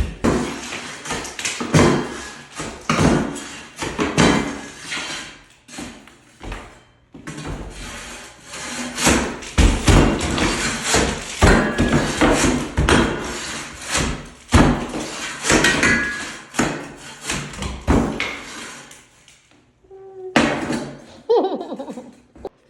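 Hammer blows on old ceramic floor tile, struck irregularly about once or twice a second, as the tile and backer board are broken up.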